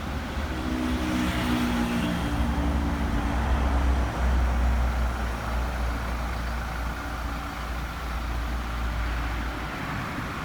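Motor vehicle running: a steady low rumble of engine and road noise, with an engine note showing over the first three seconds.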